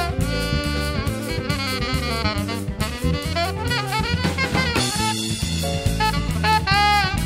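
Live instrumental funk-jazz band playing: a saxophone carries a bending, sliding melody over a drum kit and electric bass guitar.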